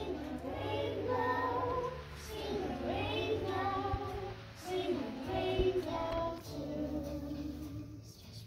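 A group of young children singing a song together in short phrases.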